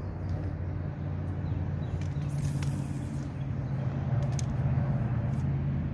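Steady low engine hum that swells slightly about four seconds in, with a couple of faint ticks.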